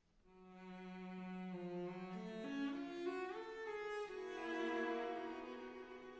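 Instrumental background music: bowed strings playing a slow melody of long held notes, starting out of a brief silence.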